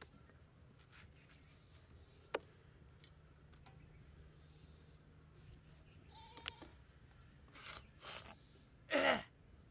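A low steady hum, with a sharp click a little over two seconds in, a short high call about six and a half seconds in, and three short noisy bursts near the end, the last the loudest.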